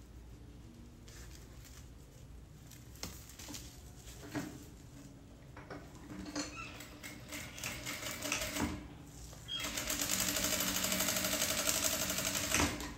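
Scattered clicks and fabric rustles. About ten seconds in, an industrial straight-stitch sewing machine runs steadily for about three seconds, stitching through layered fabric, then stops near the end.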